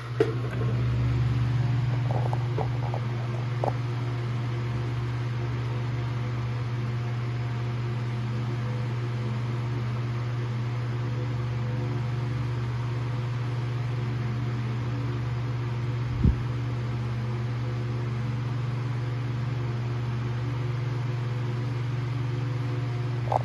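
Vintage Emerson 79648-SA 16-inch table fan running steadily: a low, even motor hum with the whine of the capacitorless motor, and blades moving air. There is a brief low thump about sixteen seconds in.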